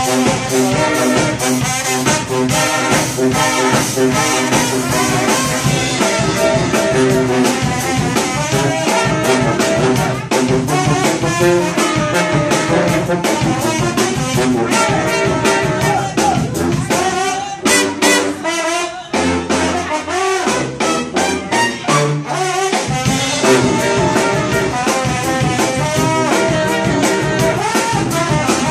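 Live brass band of baritone saxophone, saxophone, trombone, trumpet and sousaphone, with a drum kit, playing an up-tempo groove. A little past the middle the band drops to a sparser, quieter break for a few seconds, then the full groove comes back.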